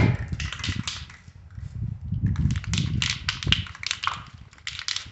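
Aerosol can of Rust-Oleum trim and bumper spray paint being shaken before use, its mixing ball rattling in fast clicks. The rattling comes in two spells, with a pause of about a second between them. Wind rumbles on the microphone underneath.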